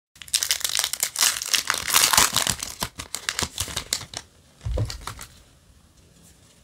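Foil Yu-Gi-Oh! Mega Pack booster wrapper being torn open and crinkled: loud crackling for about four seconds, starting abruptly. Near the end comes a short soft thump, then only faint handling.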